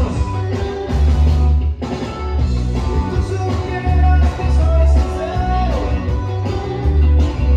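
Loud dance music with singing over a heavy bass beat, played through a party DJ sound system; the music thins out for a moment about two seconds in.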